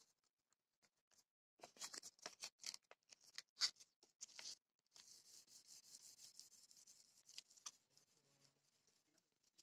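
Faint crinkling and rustling of fine-grit sandpaper being folded and wrapped around a wooden sanding block. A quick run of short scratchy strokes about two seconds in is followed by a few seconds of soft, hissy rubbing.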